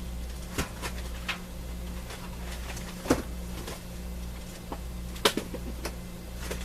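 Rummaging through books and craft supplies: scattered short knocks and clatters of things being moved and set down, about eight in all, over a steady low electrical hum.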